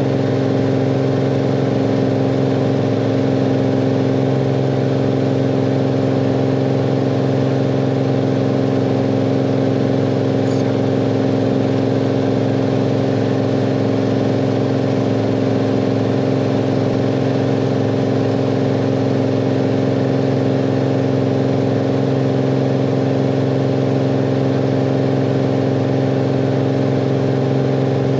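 Cirrus SR22's six-cylinder piston engine and propeller droning steadily in flight, heard inside the cabin. It is loud and unchanging, with no change in pitch.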